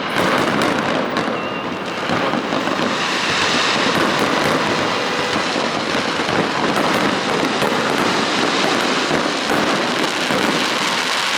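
Fireworks going off in a dense, continuous crackle with many sharp pops packed close together.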